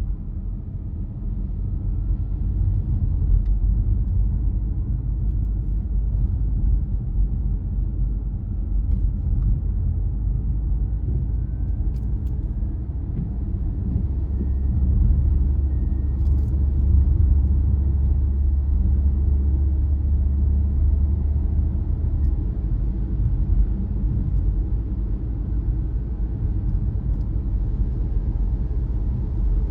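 Car driving along a road: a steady low rumble of tyres and engine, deepening for several seconds in the middle, with a few faint clicks.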